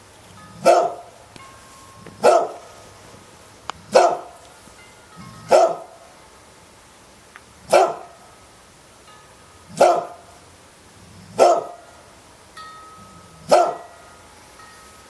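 A dog barking single barks at an even pace, eight in all, one every one and a half to two seconds.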